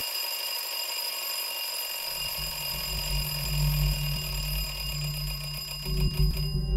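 Twin-bell wind-up alarm clock ringing steadily. A low steady hum comes in about two seconds in.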